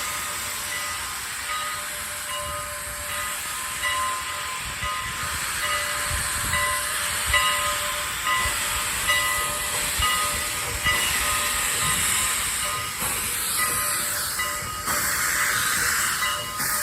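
Steam train hauled by Strasburg Rail Road's steam locomotive No. 89, with a steady hiss of steam, faint short tones repeating about once a second and a few low thumps.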